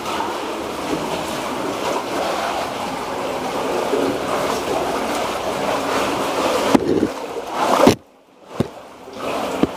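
Water rushing and sloshing as a caver works through a wet, tight cave passage, steady for most of the time with a few sharp knocks about seven to eight seconds in. The sound cuts out abruptly for about a second near the end, then resumes.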